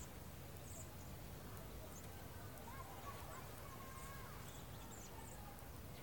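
A large flock of small birds flying over, calling faintly: scattered short, high chirps and a few wavering lower notes, over a steady low rumble.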